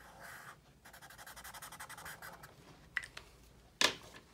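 Felt-tip marker squeaking and scratching on paper in quick back-and-forth strokes as a small shape is coloured in, followed by two sharp clicks near the end, the second louder.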